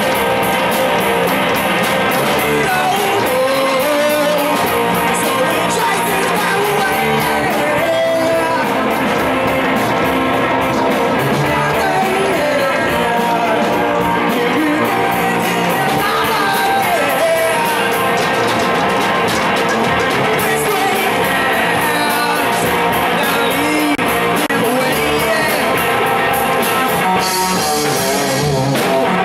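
Live rock band playing a loud, steady rock song: amplified electric guitars over a drum kit.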